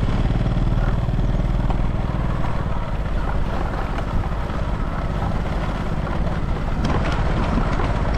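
Small motor scooter engine running steadily while the scooter is ridden, with a light click or two near the end.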